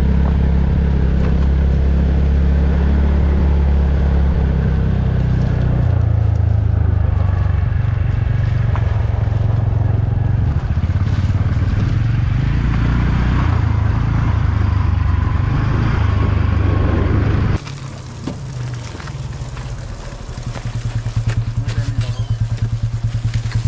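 A motor scooter's engine running steadily under way, its note shifting about a third of the way in. It cuts off suddenly, and near the end a motorbike engine idles with an even pulse.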